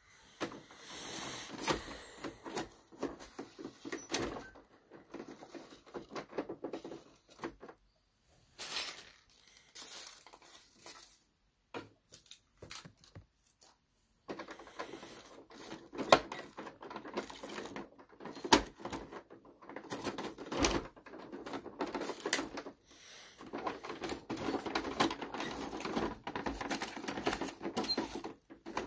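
Toy garbage truck's hand-cranked plastic compactor mechanism clicking and rattling in irregular runs as it is worked to press the paper trash in the hopper, with a pause of a few seconds about halfway.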